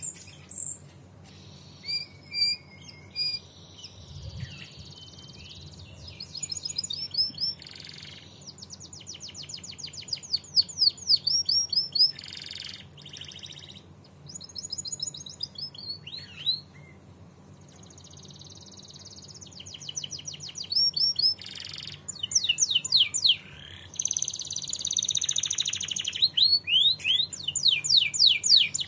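Domestic canary singing: phrases of rapid trills and fast runs of repeated sweeping high notes, broken by short pauses.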